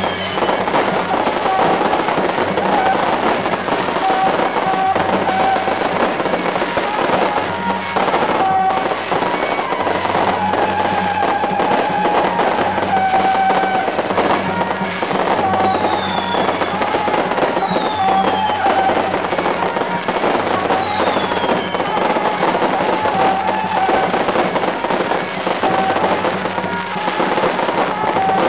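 Long strings of firecrackers going off in a dense, unbroken crackle, with procession music playing held notes underneath.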